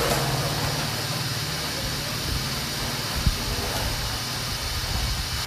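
Steady electronic hiss with a low hum underneath, coming from the speaker of an audio decoder and amplifier board with no programme playing, and a brief click about three seconds in.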